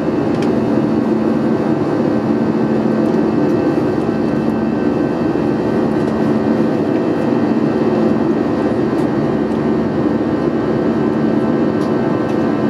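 Steady jet engine and airflow noise inside the passenger cabin of an Airbus A320 in flight, a constant roar with a low steady hum running under it.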